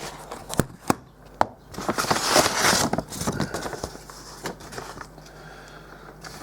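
Paper and cardboard packaging of a small mailed parcel being handled and rustled, with a few sharp clicks and taps. The loudest rustle comes about two seconds in and lasts about a second.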